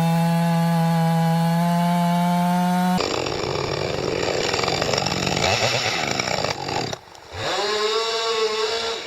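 Two-stroke chainsaw running at full throttle with a steady high whine; about three seconds in this gives way to the rougher, noisier sound of the chain cutting through wood. Near the end the saw drops off briefly and revs up again.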